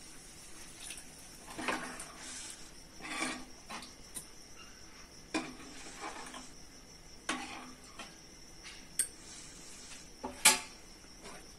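Steel ladle knocking and scraping against a metal cooking pan while stirring thin curry gravy with peas: a string of separate clinks every second or two.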